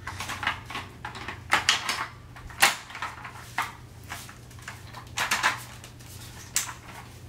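Hard plastic parts of a Graco Cuddle Cove bassinet frame knocking and clicking as the tube arms are worked into their connectors to make them latch. The result is a string of sharp clacks, the loudest about two and a half seconds in.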